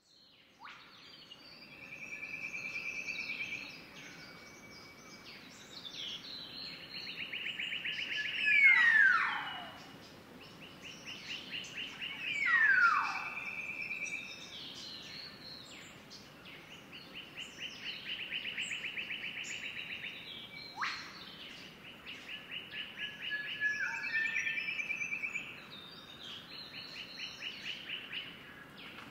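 Birds calling in a garden, with repeated rapid trills and two loud downward-sliding whistles about four seconds apart near the middle.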